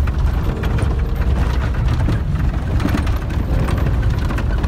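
Steady low engine rumble of a vehicle under way, with light rattles and clicks over it.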